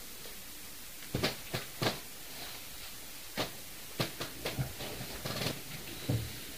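A series of irregular light knocks and taps, about a dozen short clicks at uneven intervals, over a steady quiet background hum.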